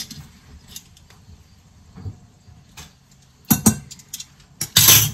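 Kitchen handling noises from a glass jar of flour with a plastic lid: a few faint clicks, then two short scraping bursts near the end, the second one the loudest.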